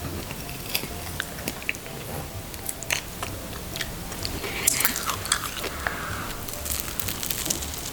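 Close-up eating sounds: biting and chewing food, with many short crunches and wet clicks, busiest in the second half.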